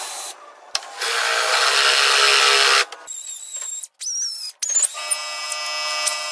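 Cordless drill boring through a valve-cover oil-fill cap for about two seconds. It is followed by short stop-start bursts of a small power tool, then a die grinder running with a steady high whine over the last second or so.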